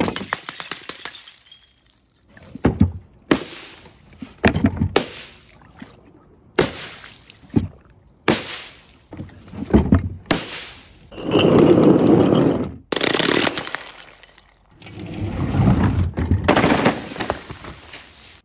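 A string of separate drops with abrupt cuts between them: glass bottles and jars crashing and shattering on paving stones and on a board of nails, and a filled balloon bursting. Most are short sudden crashes; a couple are longer, noisier crashes lasting a second or two.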